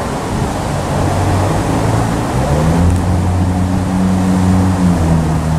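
A nearby engine's low, steady hum that swells and rises slightly in pitch about two and a half seconds in, holds, then fades near the end, over steady outdoor background noise.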